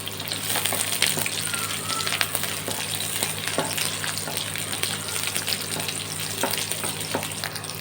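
Onion pieces with dried red chillies, garlic and ginger frying in a little oil in a kadai as they are stirred: a steady sizzle full of small crackles.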